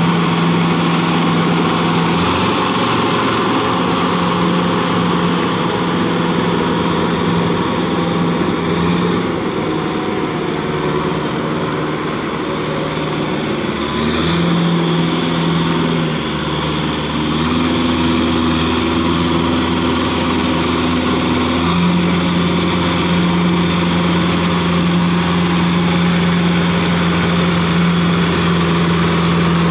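Kubota tractor's diesel engine working steadily under load as it pulls a rear rotary tiller through a wet paddy. Its steady note shifts in pitch a few times as the load changes.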